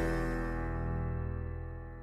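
Background music with held notes fading out steadily.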